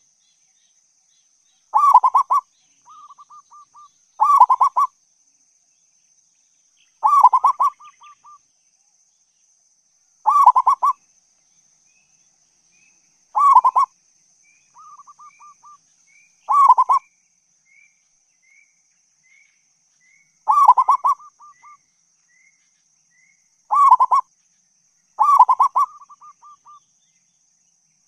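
Zebra dove (perkutut) singing its cooing song: nine short, rapid staccato phrases repeated about every three seconds, several trailed by softer notes. Behind it are a faint steady high hum and, from about halfway through, a run of thin high notes from another bird, about two a second.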